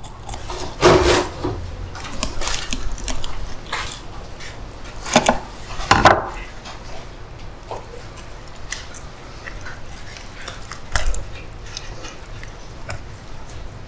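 Knife knocking and scraping on a wooden board while cleaning fish: scattered light taps with a few sharper knocks, the loudest about a second in, around five and six seconds, and near eleven seconds.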